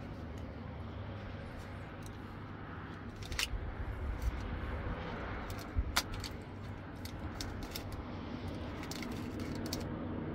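Scattered small clicks and knocks of hands working with food and dishes, the sharpest about three and a half and six seconds in, over a steady low rumble.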